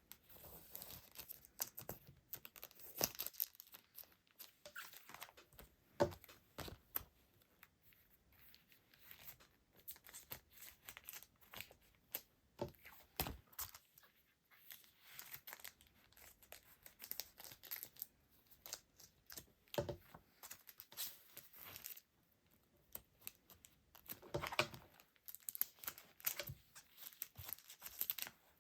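Hands handling packaging: plastic and paper crinkling and tearing in short, irregular bursts, with small clicks and taps, sounding close in a small room.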